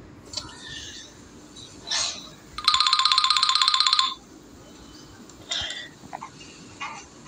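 A Nokia C1-01 mobile phone's speaker plays a short ringtone: a rapid trill of high beeps lasting about a second and a half, starting a little over two and a half seconds in. A few soft noises come before and after it.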